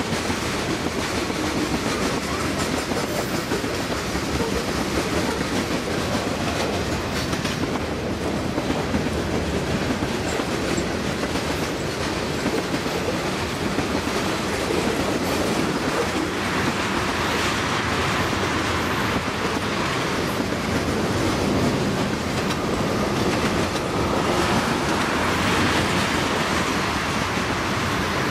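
Freight train cars (tank cars, then boxcars) rolling steadily past: a continuous rumble of steel wheels on rail, with frequent clicks as the wheels cross the rail joints.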